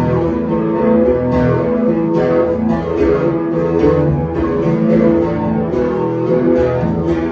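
Live amplified acoustic guitar playing a repeating picked and strummed chord pattern, with sustained lower notes ringing underneath.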